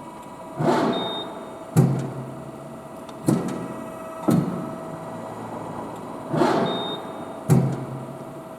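Amada RGM2 press brake running through its stroke cycle over a steady machine hum. Twice a rising whoosh is followed by a sharp clunk about a second later, and two more knocks fall in between.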